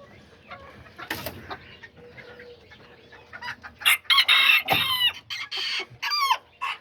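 Kikiriki bantam roosters crowing loudly from about four seconds in, one long bending call after another, with hens clucking in the quieter stretch before.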